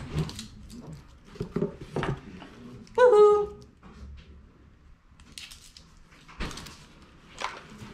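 Soft kitchen clatter and knocks, with one short, high-pitched call about three seconds in that rises and then falls in pitch.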